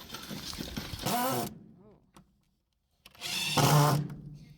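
Power drill running in short bursts while building a wooden shed, the second burst, about three seconds in, the longest and loudest.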